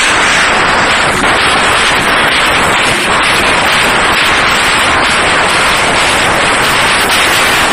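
Loud dance music from a party sound system, overloading the phone microphone so that it comes through as a constant distorted noise with no clear beat.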